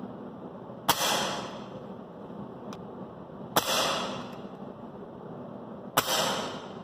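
Three shots from an air rifle firing .177 pellets, spaced about two and a half seconds apart. Each is a sharp crack with a short ringing tail.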